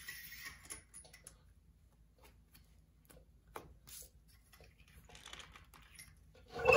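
Light scattered clicks and rustles of spark plug wires being handled and pressed into place on a flathead six engine, with a louder sound starting right at the end.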